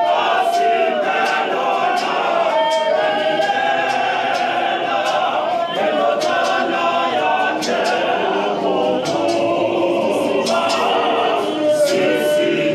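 Mixed-voice gospel choir singing unaccompanied in harmony.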